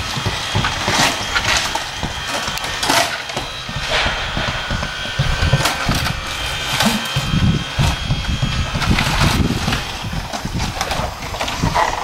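Job-site clatter of old siding being handled and torn off: scattered sharp knocks and cracks at irregular intervals over a shifting low rumble.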